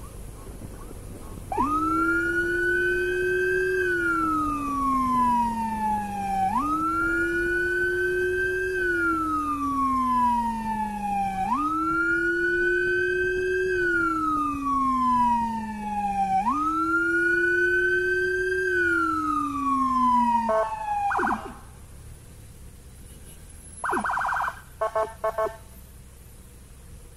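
Police escort's electronic siren wailing: four slow rise-and-fall cycles of about five seconds each, ending in a quick yelp, then a few short blips a few seconds later.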